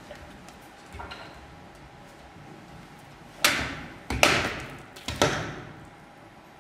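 Katana cutting through a rolled tatami-mat target three times in quick succession, each cut a sharp swish-and-slice that trails off in the hall's echo.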